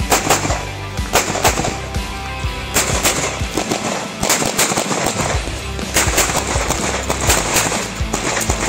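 Pistol shots fired in rapid strings, several quick shots at a time with short pauses between, over background music.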